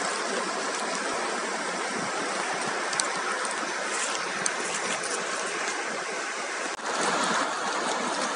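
Fast mountain river rushing over shallow rapids and stones: a steady, full water rush, a little louder after about seven seconds.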